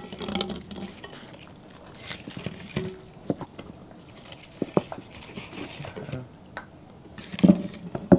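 Scattered clinks and taps of spoons against glass serving bowls and plates as food is dished out, with a louder clatter near the end.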